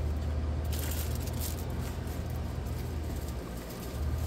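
Steady low hum, with a few light rustles of plastic-wrapped craft kits being handled on a tabletop, the first about half a second in and another about a second and a half in.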